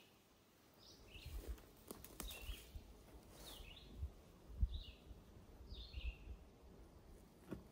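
A songbird singing short, high phrases, about one a second, with low rumbles of wind on the microphone and a few faint clicks.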